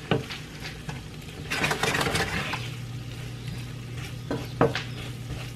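Wooden spatula stirring and scraping rice, kielbasa and broccoli around a skillet, with a few sharp knocks against the pan and a soft sizzle; the loudest scraping comes about two seconds in. A low steady hum joins at about two and a half seconds.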